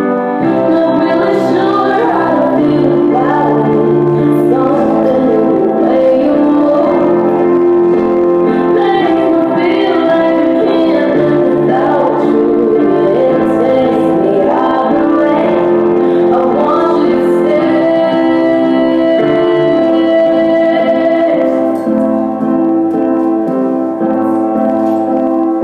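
A song playing: a woman singing over sustained instrumental backing.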